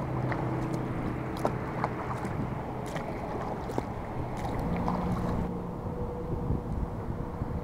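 Water splashing and lapping around a Pescador kayak's hull as it is paddled, with scattered small knocks of the paddle and gear against the hull, over a steady rushing noise.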